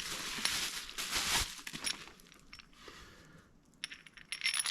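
A small plastic parts bag rustling, then loose steel bolts and nuts clinking against each other with short ringing chinks near the end.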